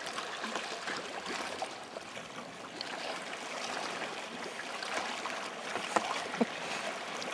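Sea water lapping and trickling against the hull of a sea kayak drifting on the sea. There are two short knocks about six seconds in.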